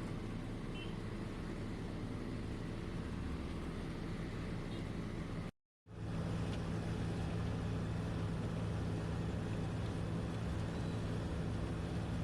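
Wirtgen road milling machine working, a steady diesel engine hum with the noise of the drum cutting the old asphalt. The sound cuts out completely for a moment a little before the middle, then carries on.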